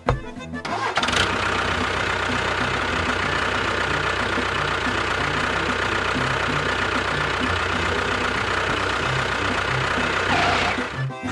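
A small motor runs steadily for about ten seconds. It spins up with a rising whine about a second in and winds down with a falling whine near the end.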